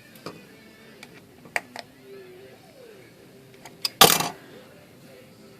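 Small metal clicks and knocks of typewriter parts and tools being handled on a workbench, with one louder clatter about four seconds in.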